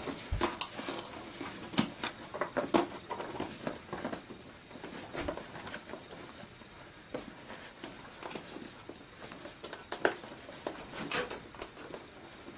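Fabric rustling with scattered small plastic clicks and taps as hands press and tuck the padded seat into a Chicco Band baby walker's plastic frame.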